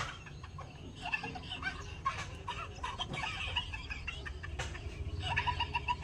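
Chicken clucking: a string of short, repeated clucks, with a quick run of even clucks near the end.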